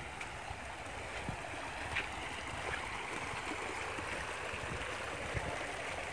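River water flowing: a steady noise of running water, with a few faint knocks.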